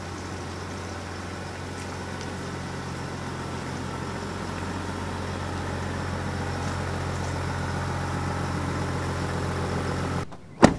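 Chevy Silverado's 3.0 Duramax inline-six turbodiesel idling with a steady low hum. The sound cuts off abruptly about ten seconds in, and a single sharp click follows.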